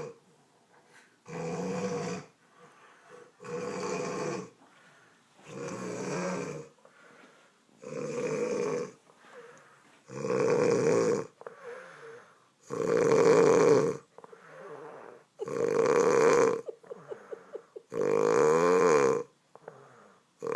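A woman snoring: eight loud snores, one about every two and a half seconds, each lasting about a second, getting louder and longer as it goes on, with fainter breathing sounds between them.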